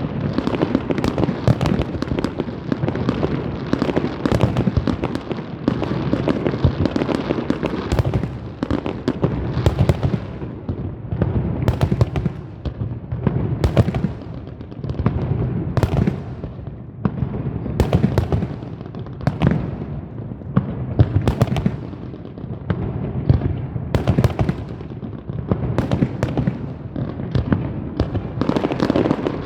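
Fireworks going off in rapid, overlapping succession: a continuous dense stream of bangs and crackling, with sharper cracks standing out every second or two.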